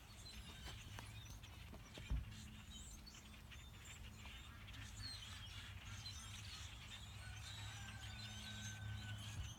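Faint chatter of a large flock of blackbirds: many short chirps scattered throughout, with a few longer whistled notes near the end, over a steady low rumble. A single thump about two seconds in.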